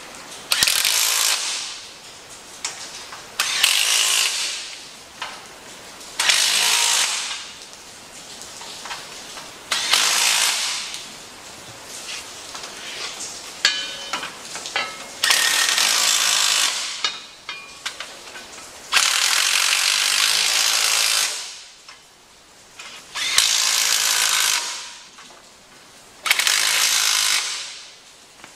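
Power ratchet running bolts into a clutch bell housing, in about eight separate bursts of one to two seconds each with short pauses between, a whirring hiss each time.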